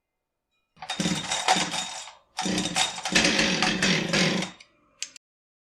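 Husqvarna 572XP two-stroke chainsaw engine running in two short stretches, about one and two seconds long, with a brief blip near the end. It is fast idling, a sign of a throttle held open by a hung-up trigger or throttle cable.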